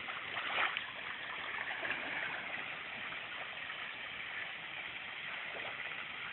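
Water splashing and churning as a child swims through a pool, with a brief louder splash about half a second in.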